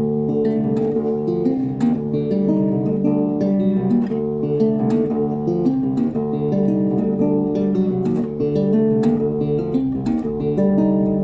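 Acoustic guitar playing a continuous, eerie figure of rapidly plucked notes that keeps circling without pause.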